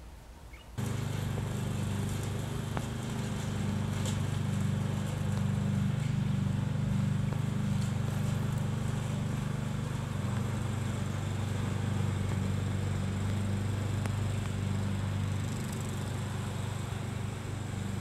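An engine running steadily with a low, even hum, starting abruptly about a second in.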